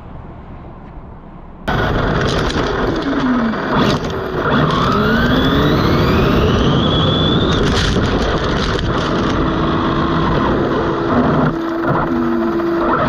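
Onboard audio of an Arrma Limitless RC car on a full-throttle speed run: its electric motor whines in pitch glides that rise as it accelerates, over loud wind and tyre rush. It starts suddenly a couple of seconds in, after a quieter stretch of road noise.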